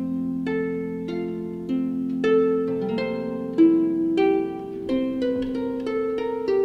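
Background music: a gentle melody of plucked string notes, each struck sharply and left to ring, with a new note about every half second to a second.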